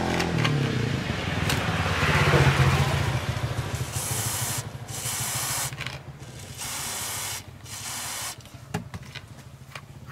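Rubbing and scraping for a few seconds, then two hissing sprays, the first nearly two seconds long and the second under a second, each starting and stopping sharply.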